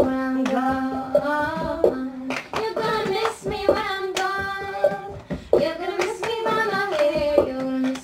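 A woman singing a tune unaccompanied while clapping her hands and knocking a cup on a tabletop in a steady rhythm, as in the cup game.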